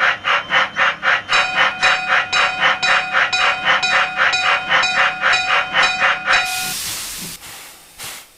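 Cartoon steam locomotive sound effect: rhythmic chuffing at about four beats a second, joined about a second and a half in by a steady steam-whistle tone. Both stop near the end, giving way to a loud burst of steam hiss that fades out.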